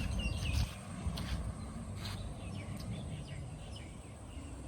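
Birds chirping with short, scattered high calls over steady outdoor background noise, with a low rumble in the first half-second.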